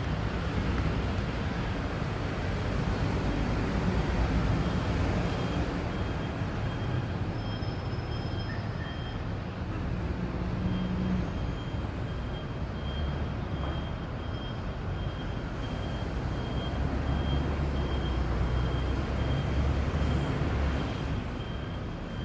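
Wind blowing against the microphone: a steady rush with a low rumble that swells and eases, and a faint high tone pulsing briefly over it.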